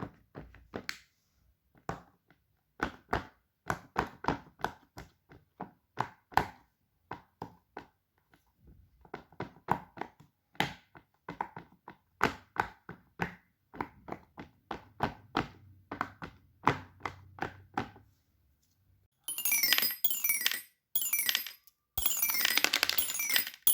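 Plastic fidget toys being clicked and tapped: a long irregular run of short knocks, a few a second. About nineteen seconds in it gives way to a dense, bright rattling and clinking.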